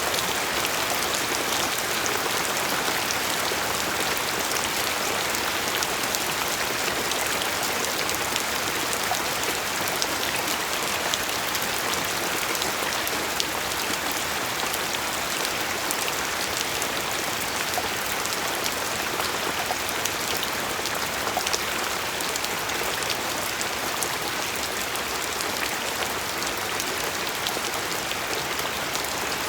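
Steady rain falling, with a dense patter of individual drops hitting a surface.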